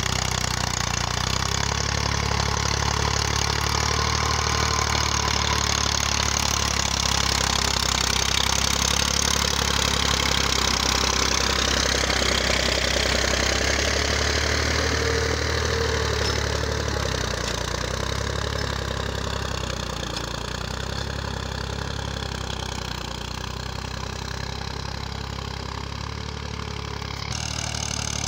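Massey Ferguson 240 tractor's three-cylinder diesel engine running steadily under load as it pulls a cultivator through a flooded paddy field, a little fainter in the second half as the tractor moves off.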